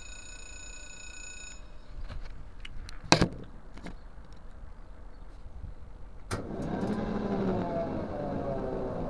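A level-crossing warning ringer sounds a steady electronic tone and stops about a second and a half in. A few handling knocks follow, one sharp and loud about three seconds in, as the camera is set down. From about six seconds a vehicle sound sets in with several tones gliding slowly down in pitch.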